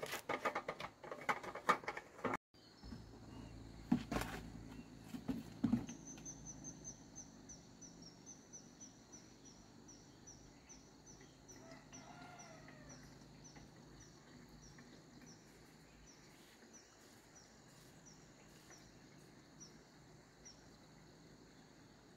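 Birds: a long series of short, high chirps repeated about twice a second that slow and fade, with a faint chicken-like call about twelve seconds in, over a steady high hum. The first few seconds hold clattering and a couple of knocks, the loudest sounds here.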